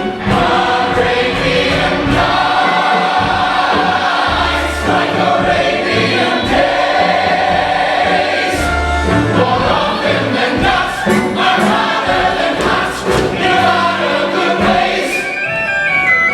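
Music with a choir singing over instrumental backing.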